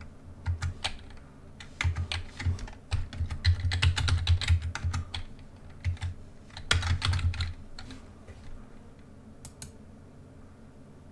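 Computer keyboard typing: quick runs of keystrokes, thinning out to a few separate taps over the last few seconds.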